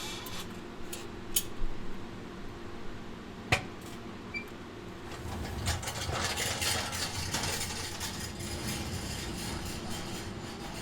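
Brewery equipment clinking and clattering over a steady machine hum. A few sharp clicks sound early, the strongest about three and a half seconds in, and from about five seconds a denser clatter sets in.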